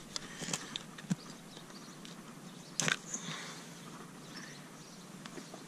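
Hoof knife paring a mule's hoof sole in short scraping cuts, digging down a dark track toward an abscess. A scatter of sharp clicks and scrapes, the loudest a brief cluster nearly three seconds in.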